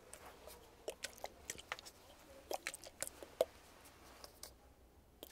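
Fingernails tapping on and handling a spray bottle close to the microphone: a quick run of crisp clicks and taps, thinning out near the end.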